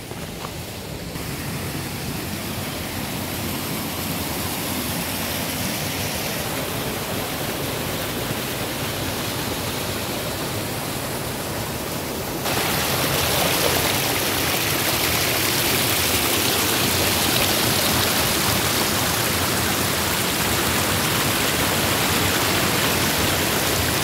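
Rushing water of a moorland stream cascading over small waterfalls, a steady noise that grows over the first couple of seconds and then jumps louder and brighter about halfway through.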